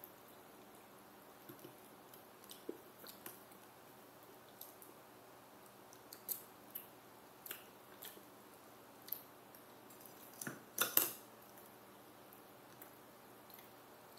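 Eating sounds: chewing, with scattered light clicks of a fork against a ceramic bowl and a louder cluster of clicks about eleven seconds in.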